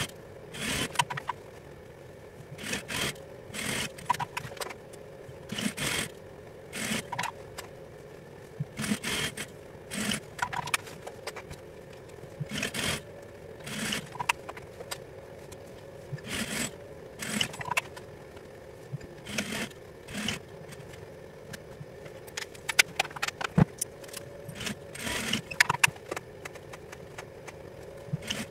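Fabric being handled and slid across a sewing table in short scraping rustles, each about half a second long and coming every second or two, over a steady hum.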